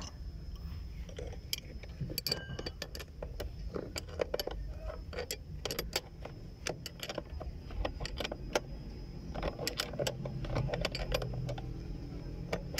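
Steel combination spanner and pliers clinking against the handbrake cable's adjuster nut and threaded rod as the nut is tightened: an irregular run of sharp metallic clicks.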